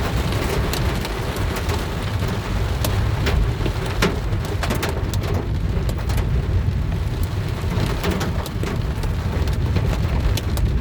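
Heavy rain pelting a car, with many scattered sharp ticks of individual hits over a steady hiss and a deep low rumble.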